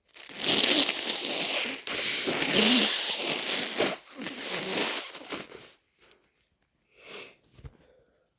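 A person with a head cold blowing a congested nose hard: three long, loud, hissing blows back to back, then a short nasal sniff about seven seconds in.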